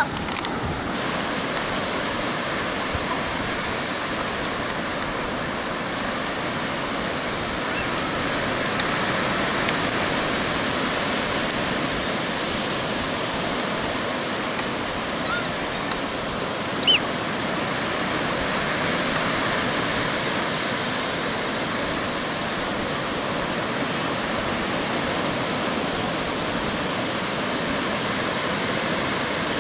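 Ocean surf breaking on a beach: a steady rushing wash of waves, with a short high-pitched cry about halfway through.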